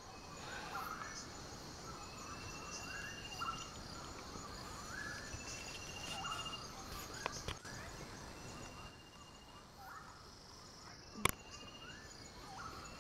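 Birds-of-paradise calling in forest: clusters of short, rising calls repeated over and over, with a short trill recurring every few seconds and a steady high insect drone underneath. One sharp click about two thirds of the way through.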